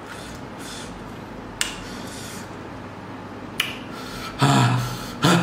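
Quiet room background with two faint clicks, then a man's voice starting about four seconds in.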